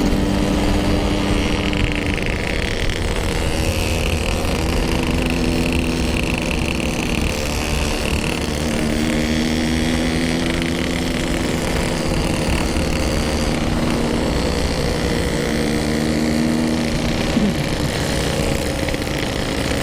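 Yamaha RX-King two-stroke single-cylinder motorcycle engine running under way, its note stepping up and down every few seconds with throttle and gear changes.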